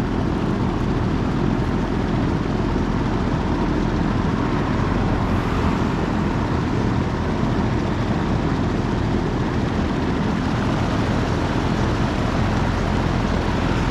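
Large drum fan running steadily: an even rushing noise with a low hum underneath.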